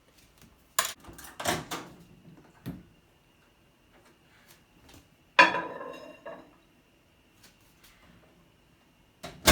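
Clinks and knocks of dishes being handled in a kitchen: a few sharp knocks early, a louder ringing clink about halfway through, and another sharp knock near the end.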